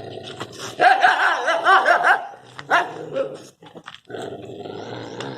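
Dogs fighting: wavering high snarls and yelps for about two seconds, a sharp bark, then a low steady growl.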